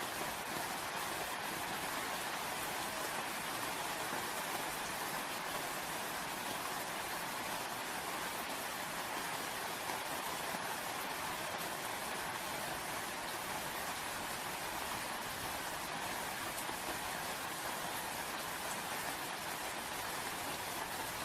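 Rain falling steadily, an even hiss that doesn't let up.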